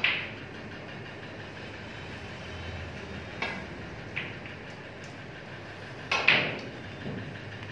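Snooker balls clicking: sharp knocks of cue tip on ball and ball on ball, a loud one at the start and a louder pair about six seconds in, with fainter clicks between, over a steady background hum.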